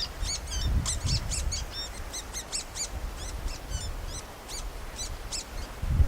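Small birds twittering: a quick run of short, high chirps that dies away shortly before the end, over a low rumble. A single low thump comes right at the end.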